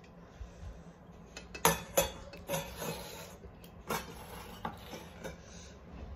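Stainless-steel bowl knocking and clinking against a steel plate as curry is tipped and scraped out of it. The two loudest knocks come close together about a second and a half in, followed by several lighter clinks.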